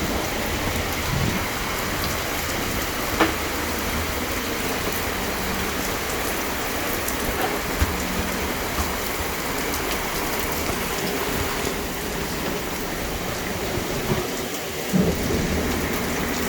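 Heavy rain pouring down steadily in a downpour, a dense even hiss with a few sharper drip or splash ticks now and then.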